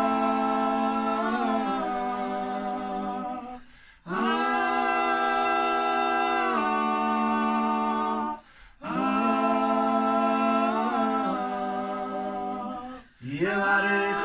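Unaccompanied voices singing Ugandan traditional folk music in close harmony, holding long sustained chords with little change in pitch. The chords come in phrases of about four seconds, each broken off by a short silence for breath, three times.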